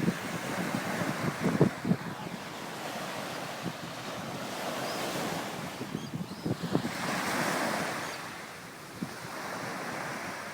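Ocean surf washing onto the beach, swelling and easing off, with gusts of wind buffeting the microphone.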